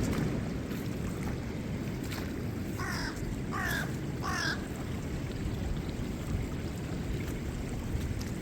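A crow cawing three times in quick succession, about two thirds of a second apart, over a steady low background rush.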